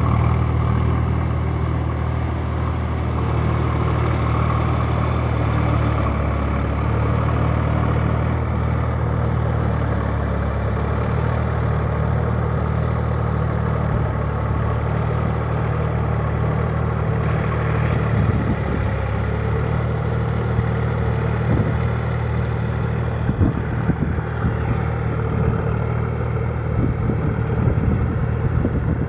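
Sonalika DI 745 III Sikander tractor's 50 hp diesel engine running steadily while it pulls a rotavator through wet paddy mud. In the second half there are irregular knocks and rattles on top of the engine.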